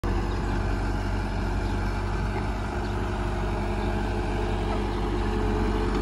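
Caterpillar compact track loader's diesel engine idling steadily.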